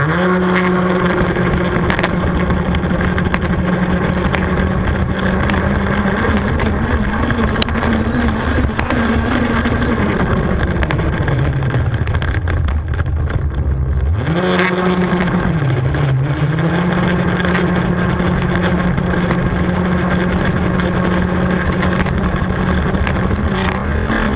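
HPI Baja 5B 1:5 scale RC buggy's two-stroke petrol engine running at high revs with a steady pitch. About ten seconds in it eases off and the pitch sinks low, then a few seconds later it revs back up sharply and holds high again.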